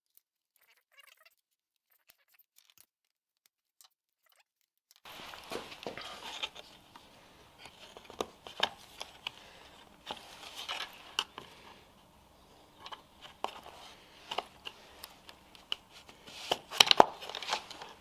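Near silence for about five seconds, then irregular clicks, taps and scraping from a plastic rocker switch being worked out of its panel cut-out with a small screwdriver to free its retaining tabs. The sharpest clicks come near the end.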